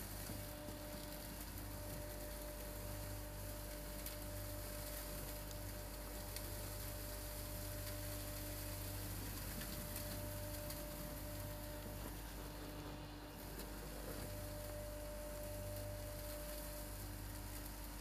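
Vacuum running steadily through a wide flexible hose: a constant hum with an even hiss over it.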